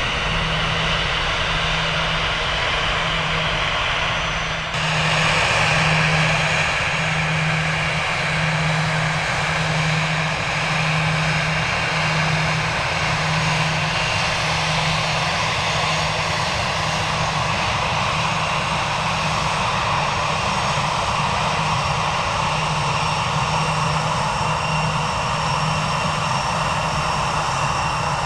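Jet airliner engines running steadily as a departing jet climbs away. About five seconds in, a cut brings in louder, nearer engine noise from Allegiant Airbus A319 and A320 jets on the runway.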